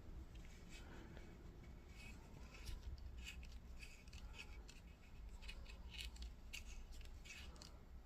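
Faint, scattered light clicks and rubbing of small screws and hilt parts being handled and tried for fit.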